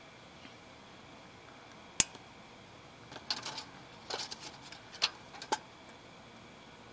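Tape measure being handled against a wooden board: one sharp click about two seconds in, then several short clusters of small clicks and rattles over the next few seconds.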